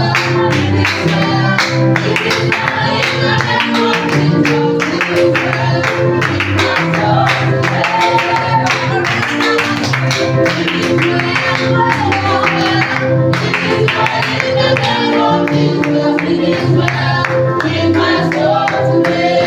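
Live worship band music with a steady drum beat, bass and guitar, and voices singing over it.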